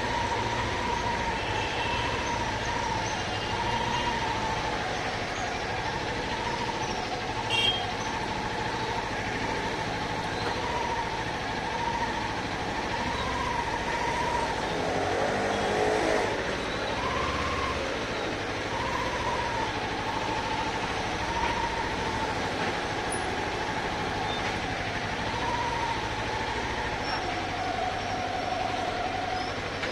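Kawasaki Ninja 400's parallel-twin engine running as the bike rides along, a steady whine that rises and falls gently over road noise. The whine drops and picks up again about halfway through, and there is one short click about a third of the way in.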